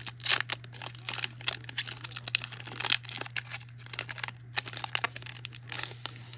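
A Panini Prizm trading card pack's wrapper crinkling and tearing as it is opened, in a quick, irregular run of crackles, over a steady low hum.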